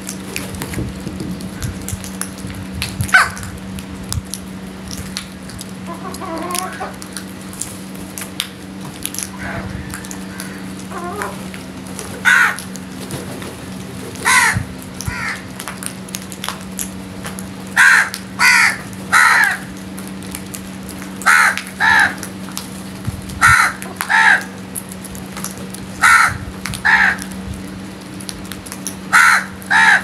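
House crows cawing: short harsh calls, often in quick pairs, that come thicker in the second half. A steady low hum runs underneath.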